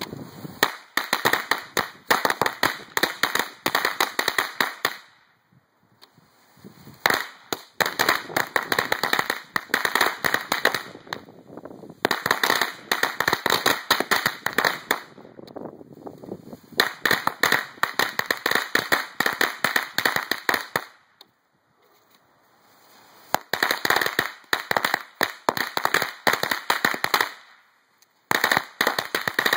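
Strings of Cutting Edge ladyfinger firecrackers going off in rapid, dense runs of small sharp cracks. There are six bursts of a few seconds each, with pauses of one to two seconds between them; the last is still going at the end.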